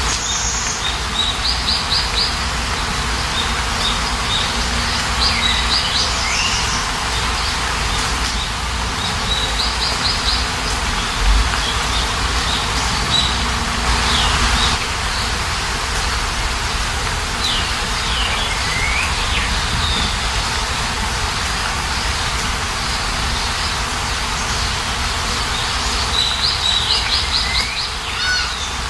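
Small songbirds chirping in short quick trills and down-slurred calls, coming in several separate bouts, over a steady hiss of falling rain.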